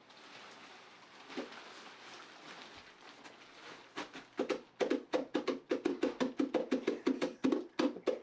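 Soft hiss for about the first half, then a child's hands rapidly slapping the deflated nylon of an airblown inflatable, about five pats a second, starting about four seconds in.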